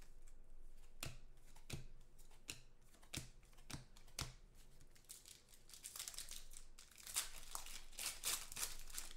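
Foil wrappers of 2014 Contenders football card packs being torn open and crinkled by hand, with scattered light clicks of cards being handled; the tearing and crinkling is busiest near the end.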